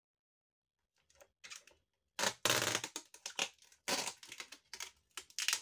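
Packing tape being pulled off its roll in loud rasping strips, starting about two seconds in, with crackling as it is stretched and pressed onto a plastic bucket lid.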